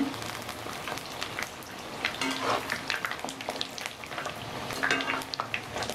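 Puris deep-frying in hot oil: a steady sizzle and crackle, with a metal slotted spoon clicking and scraping against the kadhai as they are turned. The puris have just puffed up in the oil.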